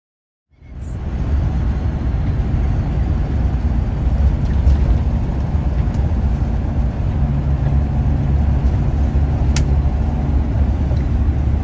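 Steady low road rumble of a vehicle cruising on a highway, heard from inside the cabin, starting about half a second in, with a single short click near the end.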